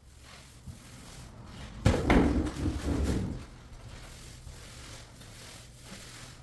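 A sudden thump about two seconds in, followed by about a second and a half of clattering and rustling, over a low steady hum.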